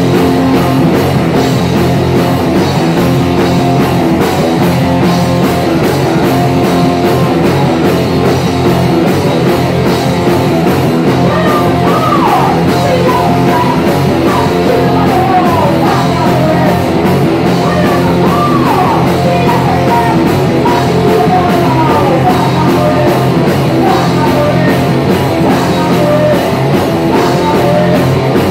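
Punk rock band playing live: electric guitar and drums with sung vocals into the microphone, and a run of high notes sliding up and down in the middle.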